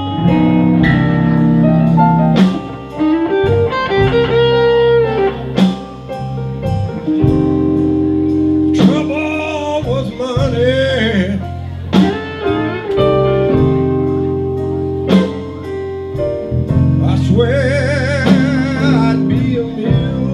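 Live blues band music: an electric guitar over a steady low bass line, with sharp beats every second or two. A man sings long notes with a wide vibrato, about nine seconds in and again near the end.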